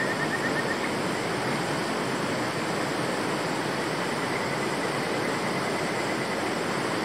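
Steady rushing of a river's flowing water, an even hiss.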